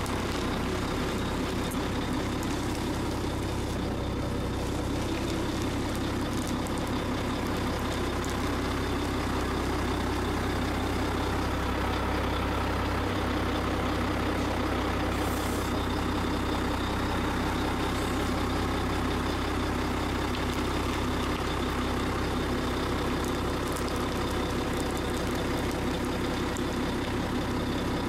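Heavy vehicle engine running steadily at a low, even drone.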